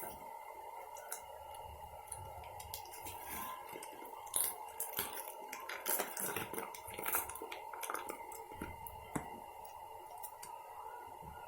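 Small clicks, clinks and wet squishing sounds of a spoon working oatmeal in a bowl, irregular and busiest in the middle, over a steady faint electrical hum.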